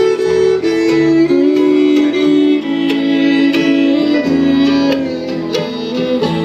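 Live bluegrass band playing an instrumental break, the fiddle carrying the melody in long bowed notes, often two at a time, over acoustic guitar, mandolin, banjo and upright bass.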